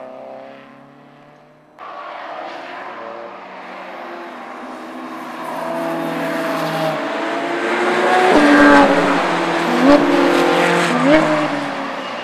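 Cars at speed on a race circuit passing one after another, their engines running at high revs with the pitch falling as each goes by. Between about 8 and 11 seconds the revs jump up sharply three times, with short thumps, and the tyres squeal as the cars slide through the corner.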